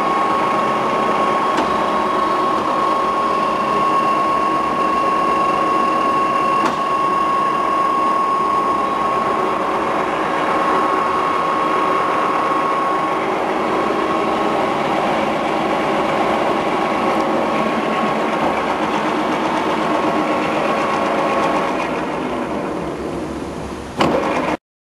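AYCE AC80 horizontal boring mill running, a steady mechanical hum with a high whine over it. It fades near the end and cuts off with a click.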